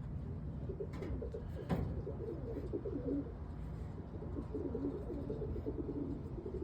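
Roller pigeons cooing, many low warbling coos overlapping continuously, with one sharp click about a second and a half in.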